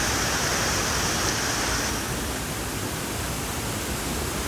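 Waterfall rushing: a steady, even noise of falling water, whose higher hiss eases a little about two seconds in.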